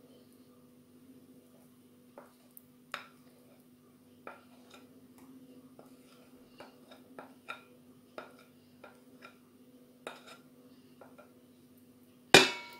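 Spatula scraping and tapping cake batter out of a ceramic bowl into a metal loaf pan: a run of light clicks and scrapes, then one loud knock near the end. A faint steady hum runs underneath.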